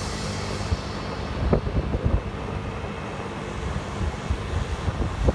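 Motor scooter riding along a street: a small engine running steadily under wind buffeting the microphone, with irregular low thumps.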